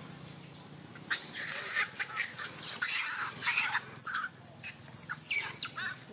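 Juvenile macaques screaming in a squabble over food: a rapid run of shrill screams and squeals that starts about a second in.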